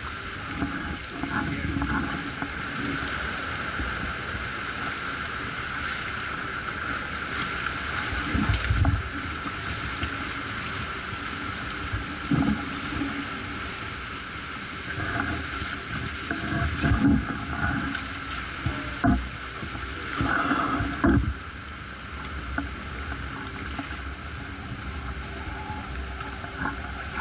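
The hull of the icebreaker Polarstern pushing slowly through heavy pack ice: a steady rushing noise with irregular heavy thuds and cracks, loudest in a cluster from about 8 to 21 seconds in, as ice blocks break and scrape against the hull.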